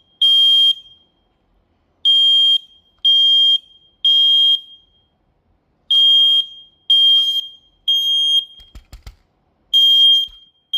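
First Alert PC1210 photoelectric smoke alarm sounding on test with loud, high-pitched beeps in the temporal-three pattern: three half-second beeps a second apart, then a pause, repeating. A few low knocks come about three-quarters of the way in.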